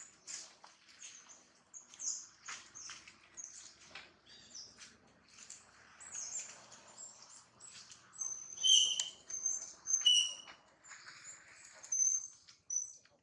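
Baby macaque squeaking and crying in many short, high-pitched chirps, louder and shriller about nine and ten seconds in, over light rustling of dry leaves.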